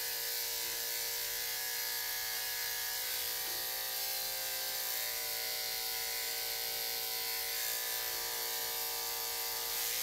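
Corded electric dog-grooming clippers running with a steady, unbroken hum as they shave down a dog's matted coat.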